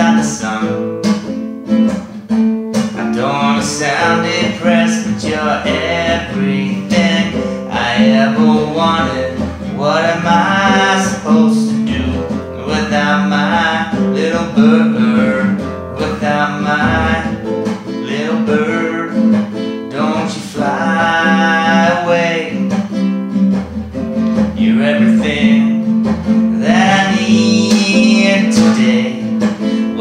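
A man singing to a strummed classical guitar.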